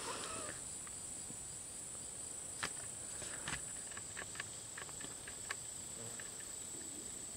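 Steady high-pitched drone of insects, with a few faint scattered clicks.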